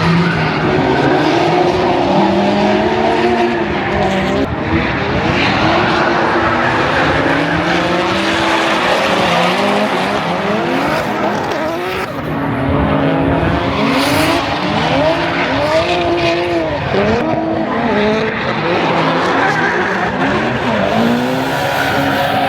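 Drift cars' engines revving hard, pitch climbing and dropping again and again as the throttle is worked, with tyres squealing as the cars slide.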